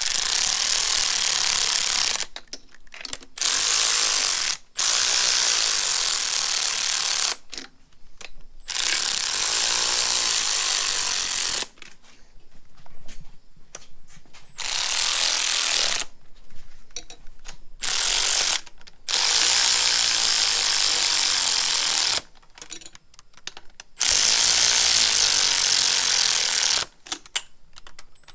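Cordless electric ratchet running down intake manifold bolts in about eight bursts of one to three seconds, with short pauses between as it moves from bolt to bolt and snugs each one.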